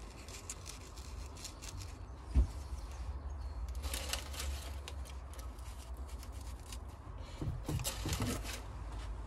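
Plastic and paper packaging rustling and small plastic plant pots clicking as potted cacti are unwrapped and set down in a plastic tray, with one sharp thump about two and a half seconds in. A steady low hum runs underneath.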